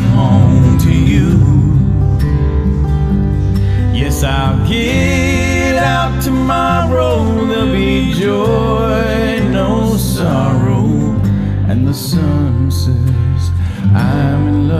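Background music: an acoustic, country-style song with guitar, here in a passage without sung words.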